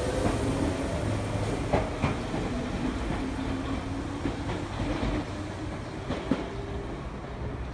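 Tokyu Ikegami Line electric train pulling out of the station: a steady rumble with a motor whine that climbs in pitch as it speeds up, and wheels clacking over rail joints a few times. It gets gradually quieter as the train moves away.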